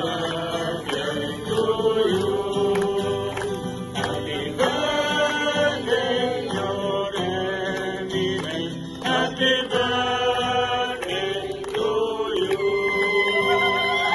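Music: a group of voices singing together, a chant-like song with long held notes.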